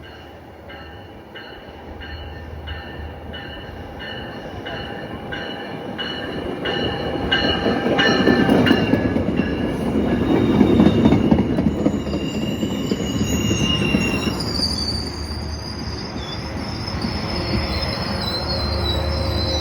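A train passing on the rails. A regular ringing clicking runs about three times a second for the first half, then a loud rumble builds, and high-pitched wheel squeal comes in over the last several seconds.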